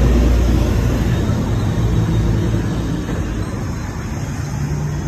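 Road traffic: a motor vehicle's engine running close by, loudest at first and easing off over the next few seconds.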